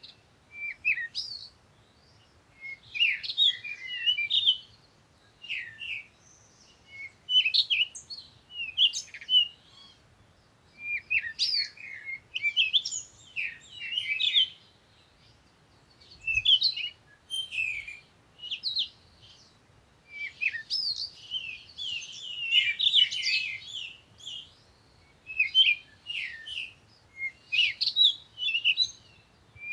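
Small birds chirping and twittering in quick phrases of high, darting notes, with short pauses between phrases.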